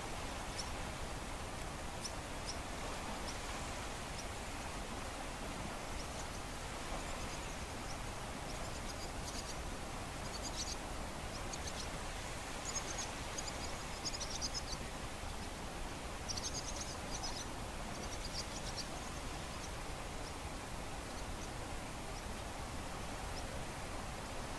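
Steady, gentle wash of the calm Baltic Sea, an even hiss with no single wave standing out. Several short bursts of high-pitched chirping come through in the middle stretch.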